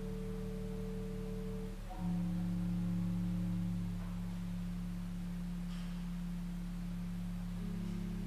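Organ holding low sustained chords, the bass pulsing evenly at first. It moves to a new chord about two seconds in and again near the end.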